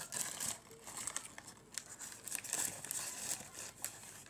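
Plastic snack packaging crinkling and crackling at close range in irregular bursts, as if being handled or torn open.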